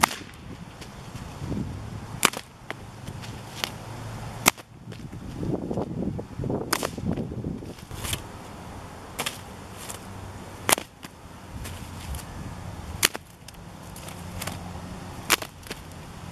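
A 2.3-metre brown leather cattle whip cracking over and over: about eight sharp cracks, roughly one to two seconds apart, with a low steady hum beneath.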